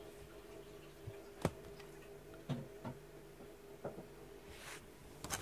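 A few scattered light taps and clicks over a steady low hum, the sharpest click about a second and a half in.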